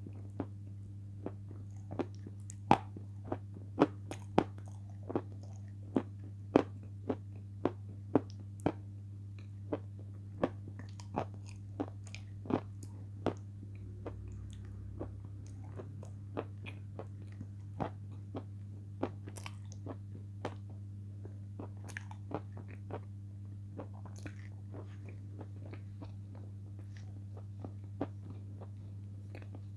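Close-up crunching and chewing of cream-dipped chips: sharp crunches about one to two a second, fewer and softer in the second half, over a steady low hum.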